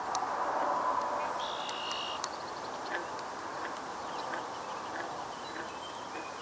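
A flying insect buzzing, loudest in the first second and a half. A brief high bird whistle comes in about a second and a half in, with a few faint chirps after it.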